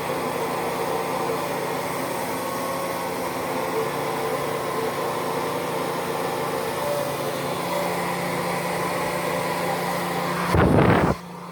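Hair dryer blowing steadily, its motor giving a constant hum under the rush of air. Near the end a short loud burst of noise comes, and then the dryer's noise cuts off.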